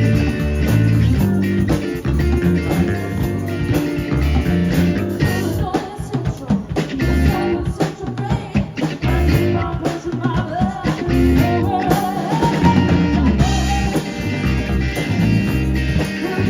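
Rock band playing: electric guitar, bass guitar and drum kit, with a lead line gliding up and down in the second half.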